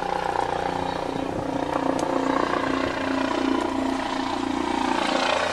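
A steady engine drone made of several even tones.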